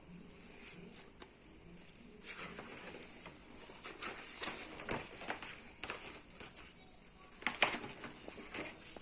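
Faint rustling with scattered clicks and taps, like something being handled, with a sharper click about three-quarters of the way through.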